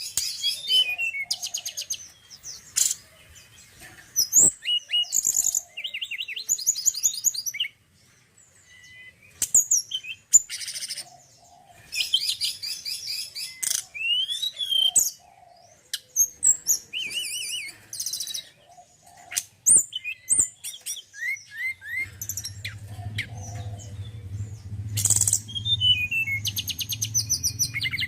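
Male tledekan gunung (Sunda robin) singing in bursts of varied high-pitched phrases: fast trills, rapid repeated notes and gliding whistles, with short pauses between. A steady low hum comes in about two-thirds of the way through.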